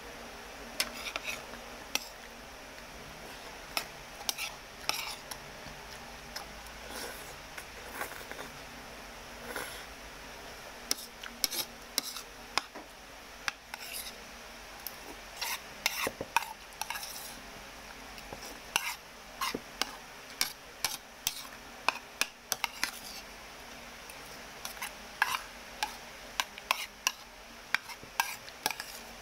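Metal cutlery scraping and clicking against a bowl again and again as rice is scooped up, in short irregular strokes.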